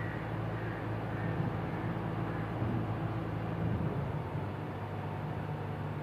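Doosan DX140 wheeled excavator's diesel engine running steadily as the machine works, digging sand with its bucket; the engine note shifts slightly about four seconds in.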